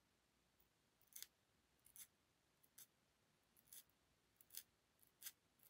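Tweezers plucking hairs from a blonde wig's part: faint, sharp little clicks, about one every two-thirds of a second.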